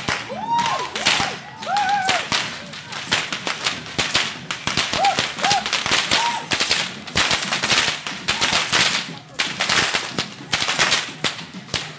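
Tlacololero dancers' whips cracking over and over, many sharp cracks a second in an irregular, overlapping rattle that grows denser after the first few seconds.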